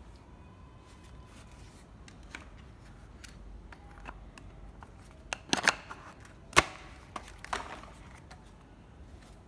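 Clicks and clacks from a cordless rotary hammer being handled, with a few sharp knocks a little past halfway, the loudest near the two-thirds mark.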